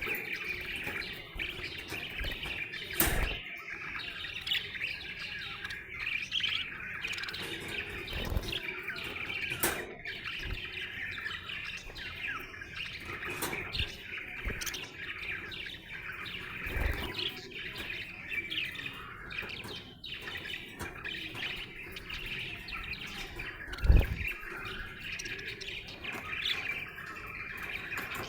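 Budgerigar chirping and warbling without a break, many short rising and falling notes: the chatter of a happy budgie. A few sharp knocks sound now and then, the loudest about 24 seconds in.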